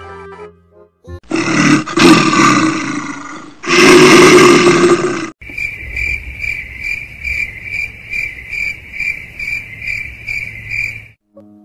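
A loud roar-like sound effect, loudest about four seconds in. It is followed by cricket chirping: a steady high chirp repeating about two and a half times a second, the stock 'awkward silence' crickets effect, which cuts off shortly before the end.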